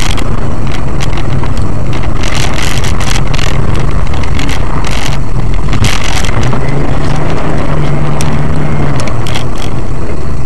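Loud, distorted vehicle noise: a low engine and road rumble overloading the recording, with scattered crackles through the middle.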